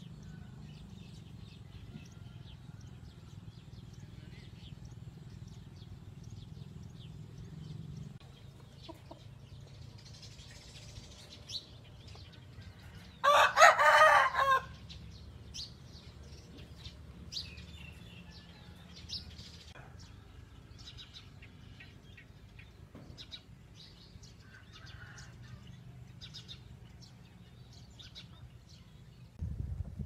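A rooster crowing once, loud, about halfway through, over a steady low rumble and scattered faint bird chirps.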